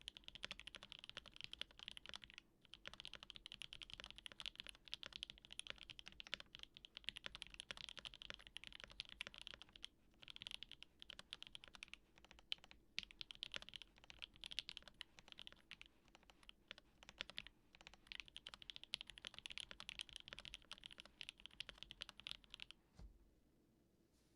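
Continuous fast typing on a D65 mechanical keyboard with a polycarbonate plate, lubed Mauve switches and GMK keycaps: a dense stream of soft keystroke clacks with a few short pauses. The typing stops near the end, with a low thump.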